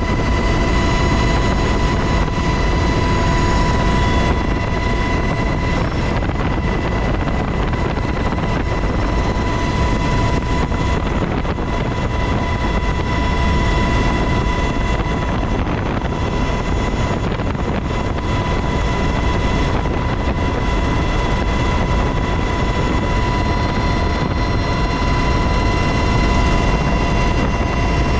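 Cabin noise of a UH-60 Black Hawk helicopter in flight, powered by twin turboshaft engines: a loud, steady roar of rotor, engines and rushing air, with a steady high-pitched whine over it.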